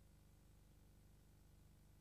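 Near silence: a faint steady low hum and hiss, with no soundtrack.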